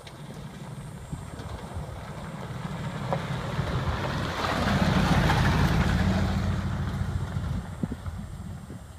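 Ford E-series van driving past on a dirt road: engine and tyre noise grow louder as it approaches, peak about five seconds in, then fade as it drives away.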